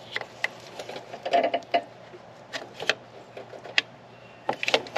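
Irregular clicks and small metal clinks of a box-end wrench working a fitting on a truck's power steering pump, with a few quick clusters of taps.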